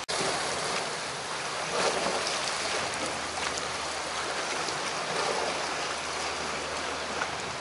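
Sea water washing against shore rocks, a steady hiss of small surf, with a few faint ticks.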